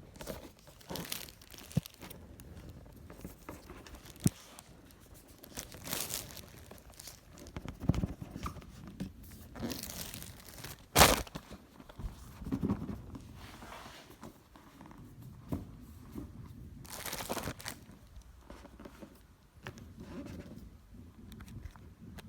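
Laptop packaging being handled and opened: plastic wrap and paper crinkling and tearing in swishes, with scattered clicks and knocks of the box, and one loud tear or knock about halfway through.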